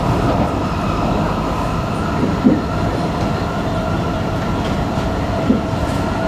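Singapore MRT train running at steady speed, heard inside the car: a constant rumble with a faint steady whine, and two short knocks about three seconds apart.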